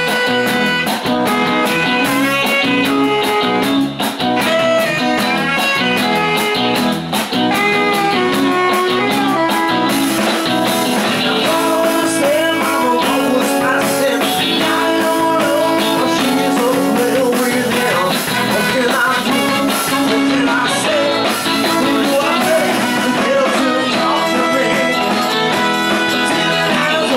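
Live blues-rock band playing: electric guitars, bass guitar and drums, loud and steady.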